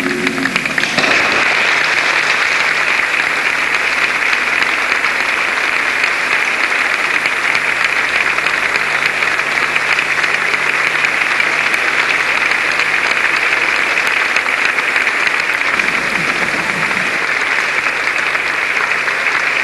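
A mixed choir's final held chord cuts off, and about a second in a church audience breaks into steady, sustained applause.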